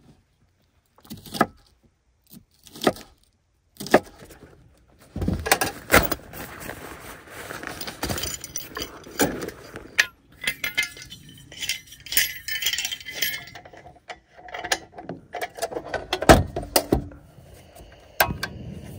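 A few separate knife strokes on a wooden cutting board. Then a long stretch of metallic clinking and clattering as a propane canister is fitted to a camp stove's hose and the stove is handled.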